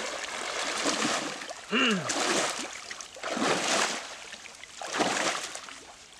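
Water splashing in surges as a person wades through a shallow stream, with a short rising-and-falling call about two seconds in.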